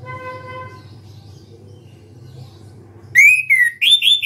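Chestnut-capped thrush (anis kembang) singing a loud burst of clear whistled notes that swoop up and down, starting about three seconds in. Before it, a brief steady tone at the very start over a low hum.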